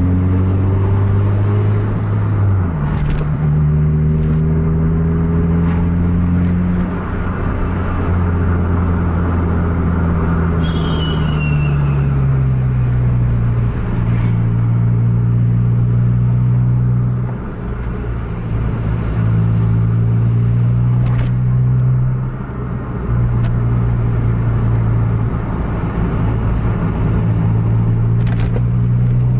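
A car engine running hard inside the cabin, with steady road noise. Its pitch climbs and drops several times as the car accelerates, eases off and changes gear.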